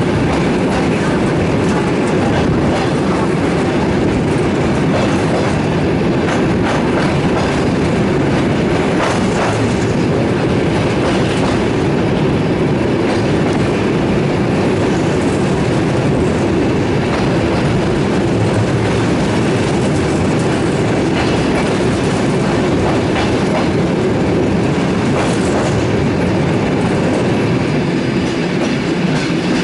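Passenger train running, heard from on board: a steady rolling noise of wheels on rail with scattered clicks.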